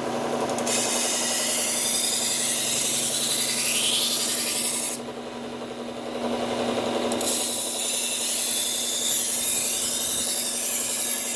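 Kitchen knife edge being ground on a low-speed belt sander with a 120-grit Cubitron belt, raising a burr: a bright hiss of abrasive on steel over the machine's steady hum. There are two grinding passes, with a break about five seconds in where only the hum is heard.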